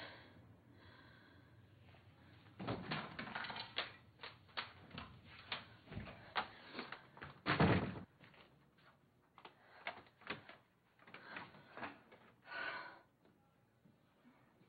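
Apartment door shutting: a run of clicks and knocks with one heavy thud about seven and a half seconds in, as the door closes and locks someone out.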